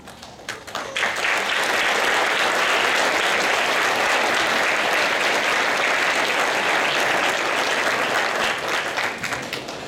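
Audience applauding: a few scattered claps, then full applause from about a second in, thinning out near the end.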